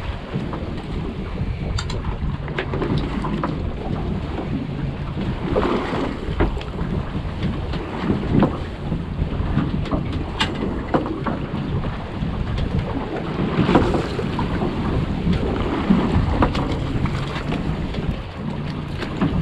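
Wind buffeting the microphone over open-sea water noise on a fishing boat's deck, with scattered clicks and knocks of gear being handled.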